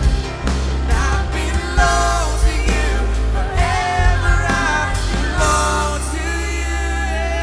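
Live worship band playing with singers: voices over drums, bass, synth and piano. The drum hits stop about five seconds in, and the band and voices hold a sustained chord.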